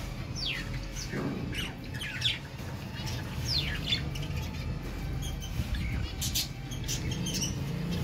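Budgerigars chirping and squawking, with several quick downward-sliding calls in the first few seconds and short sharp chirps later, over a low steady hum.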